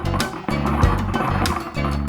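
Upbeat children's background music with a steady beat, plucked notes and bass.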